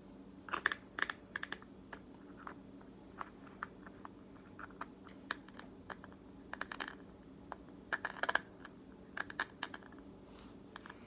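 Fingernails tapping on a small clear plastic slime container, making quick light clicks that come in short flurries with pauses between them.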